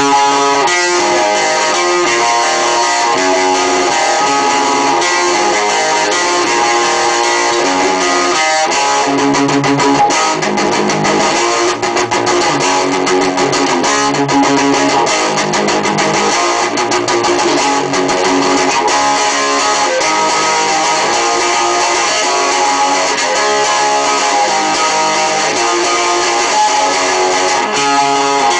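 Guitar played continuously, strummed chords and picked notes changing throughout.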